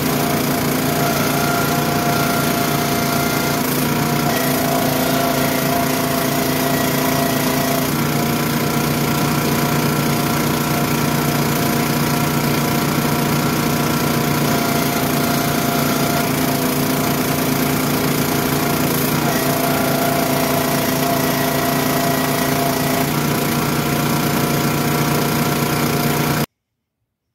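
Small gasoline engine of a Countyline log splitter running steadily, its note shifting slightly every few seconds as the hydraulic ram works through the logs. The sound cuts off suddenly near the end.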